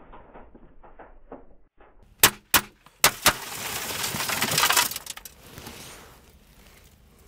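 Four pistol shots fired from inside a car, in two quick pairs about half a second apart: two through the windscreen, then two through the side window. Just after the last shot, the tempered side glass crumbles and showers down with a crackling, tinkling rattle for about a second and a half, then dies away.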